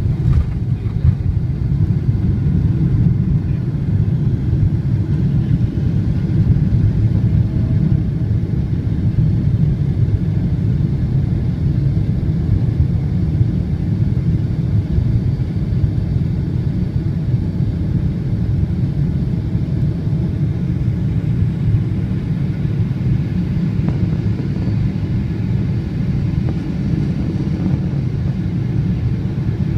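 Cabin noise of a Boeing 777 taking off, heard from a seat over the wing: the engines at takeoff thrust and the rushing air make a loud, steady low rumble as the jet leaves the runway and climbs.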